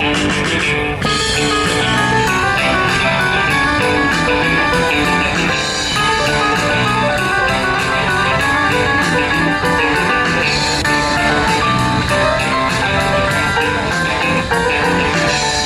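Guitar music with strummed and plucked electric guitar and bass, playing steadily throughout.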